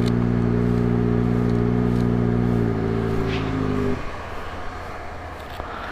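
Kawasaki ZX-25R's inline-four engine idling steadily, then switched off about four seconds in, leaving a lower background rumble. It is shut down to let the hot engine rest.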